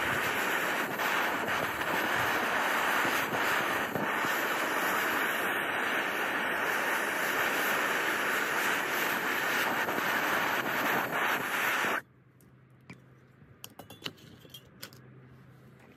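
Handheld gas torch burning with a steady hiss while it heats molten silver in a sand mold; the hiss cuts off suddenly about twelve seconds in as the torch is shut off, leaving a few faint clicks.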